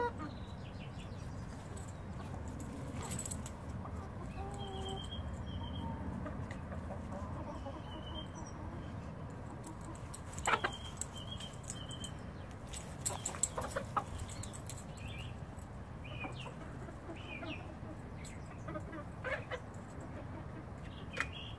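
Brown hens clucking, with short high squawks every few seconds. A few sharp clicks come in a cluster about halfway through and again near the end, over a steady low background noise.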